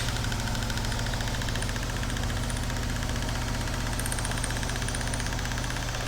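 2022 Hyundai Kona's drivetrain running on a hoist with the wheels turning: a steady hum with a fast, even pulsing. It is the vibration from the rear propeller shaft and rear differential, which the technician takes for an out-of-balance propeller shaft.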